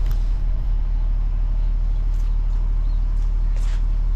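Vehicle engine idling steadily, a low, even hum, with a few faint clicks over it.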